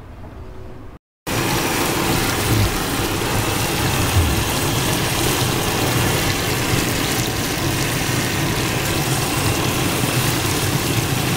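Potato chips deep-frying in hot oil in an aluminium pot on a gas burner: a loud, steady sizzle that starts abruptly about a second in. A steady low engine drone runs underneath.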